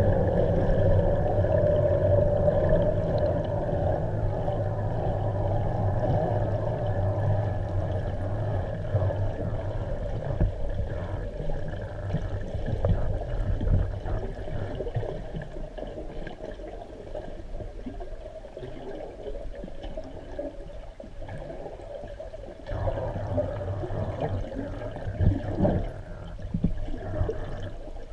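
Muffled rushing and gurgling of water heard from underwater, as a swimmer moves through a clear freshwater spring. The rush fades after the middle, then comes back in irregular surges near the end.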